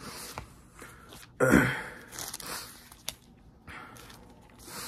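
Paper rustling and handling noise as Bible pages are turned to find a passage, in short irregular bursts. The loudest burst comes about a second and a half in.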